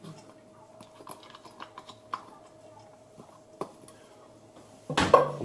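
Grated cheese dropped by hand into a stainless-steel mixing bowl of chopped filling: soft rustling with a few light clicks and taps over a faint steady hum, then a louder clunk near the end.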